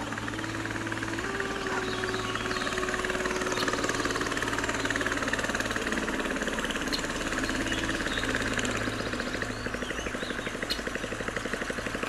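Small motorboat's engine running steadily with a rapid pulsing beat, growing louder about a second in.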